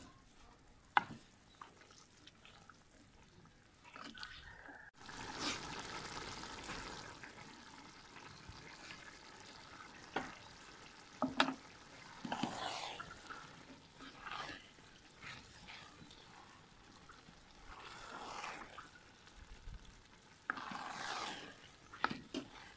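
Wooden spatula stirring rice through simmering broth in a large aluminium pot: irregular scraping, sloshing strokes over a steady hiss of bubbling liquid, with a couple of sharp knocks against the pot.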